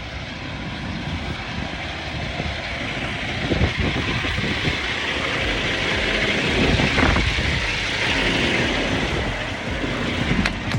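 Semi truck's diesel engine running as the tractor-trailer backs toward the loading dock. It is a steady, noisy rush that grows a little louder over the first half.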